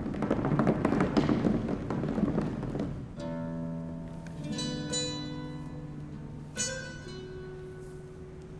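A large metal hoop spins and rolls on the stage floor with a dense, rapid rattling rumble, which stops about three seconds in. Then a nylon-string guitar plays single plucked notes that ring on with long sustain.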